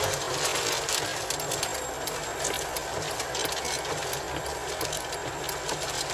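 Steady road and cabin rumble of a car driving on a wet highway, with many irregular sharp ticks of rain striking the windshield and body.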